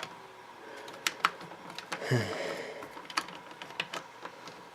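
Hard plastic parts of a 1995 Thinkway Buzz Lightyear action figure clicking and knocking together as its arms and head are handled and fitted back into the body. A short low sound falls in pitch about two seconds in.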